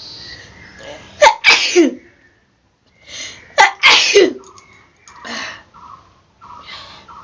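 A woman sneezing twice, about a second in and again about three and a half seconds in, each a sharp catch followed by a loud burst. The sneezes are set off by a blade of grass tickling inside her nose. Two softer breathy sounds follow near the end.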